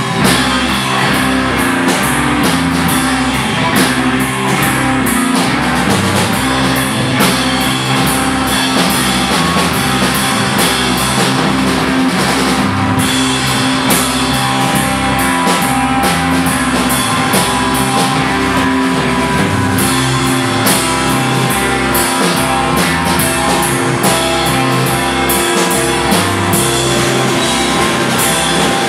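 A live rock band plays loudly: a drum kit keeps a steady beat under two electric bass guitars and an electric guitar, in a dense, unbroken wall of sound.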